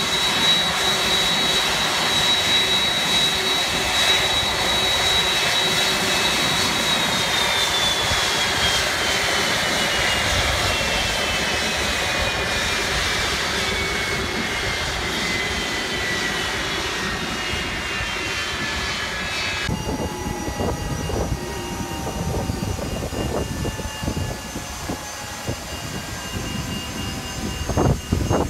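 Boeing 767-300's jet engines on stand: a high whine holds steady, then from about 7 s in falls steadily in pitch as the engines spool down after shutdown. About 20 s in the rush of noise drops away suddenly, leaving a quieter wind-down with a few knocks and a sharp clunk near the end.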